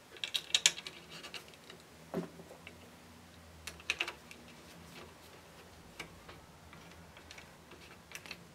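Light, irregular clicks and taps of the plastic top cover of a FlexyStruder 3D-printer tool head being seated, then screwed down with an Allen key.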